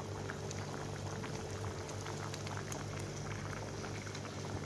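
Pot of meat and vegetable broth boiling hard on a gas stove: a steady bubbling with many small pops.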